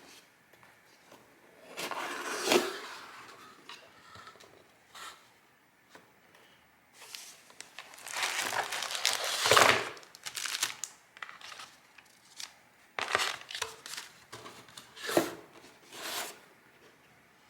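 Paper and packaging being handled, crinkling and rustling in irregular bursts, with the longest bout of rustling in the middle and several short sharp crinkles near the end.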